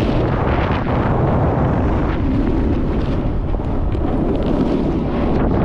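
Rushing wind buffeting the microphone as a snowboarder rides fast downhill, a steady low rumble, with the snowboard scraping and hissing over the snow.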